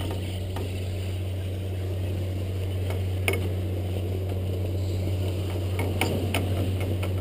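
Skis sliding on packed snow down a chairlift unloading ramp, with a few sharp clicks of skis and poles, over a steady low hum.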